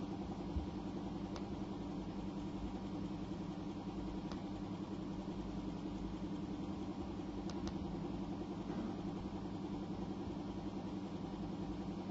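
A faint, steady, low machine-like hum with a few small clicks.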